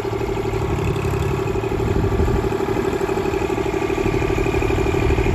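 Kubota L2501 compact tractor's three-cylinder diesel engine running steadily close by, with a steady whine over it, while the front loader lowers a hanging load; the engine slowly grows louder.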